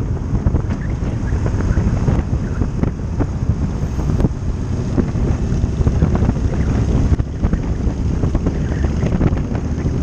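Wind buffeting the microphone of a moving motorcycle, steady and loud, with the bike's engine and road noise underneath.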